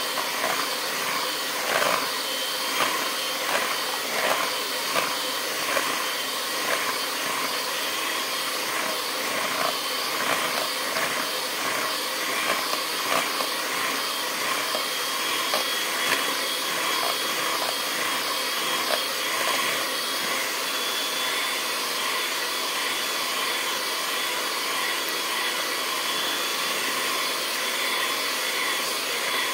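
Electric hand mixer running steadily, its beaters whipping raw eggs in a plastic bowl. Irregular light knocks sound over roughly the first two-thirds.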